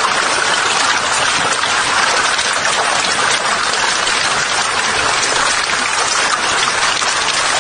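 A mass of eels thrashing in shallow water as they crowd over blocks of feed in a feeding frenzy, giving a steady, dense wet splashing and churning.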